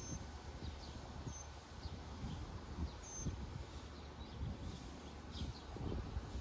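Small birds chirping, short high calls every second or two, over irregular low thumps and a steady low rumble.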